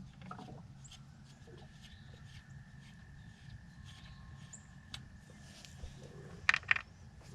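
A few sharp metallic clicks of a socket and extension being handled on the engine, two louder ones close together near the end, over a faint low rumble.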